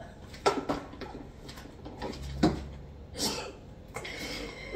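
Several short knocks and clicks of sauce bottles and food being handled on a kitchen counter.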